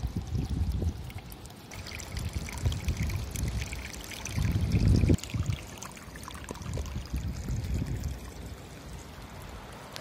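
Shallow water trickling over rock in a small stream, with wind buffeting the microphone in gusts, strongest about four to five seconds in.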